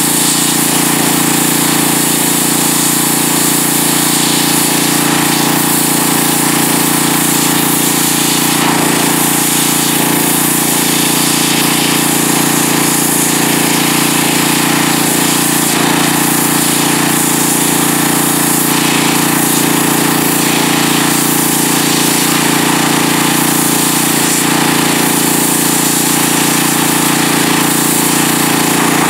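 Pressure washer running steadily, its water jet hissing as it blasts the fat and flesh off a muskrat pelt.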